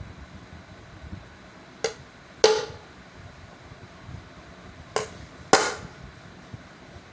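Two pairs of sharp knocks on a hard object, each a light tap followed half a second later by a louder knock with a brief ringing tail, the first pair about two seconds in and the second about five seconds in.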